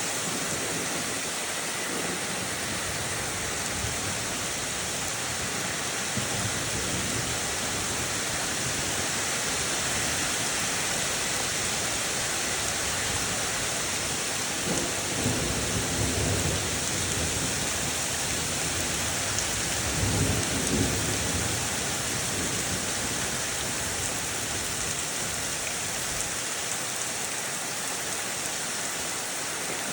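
Thunderstorm: steady, heavy rain hissing throughout, with low rolls of thunder rumbling about halfway through and again a few seconds later.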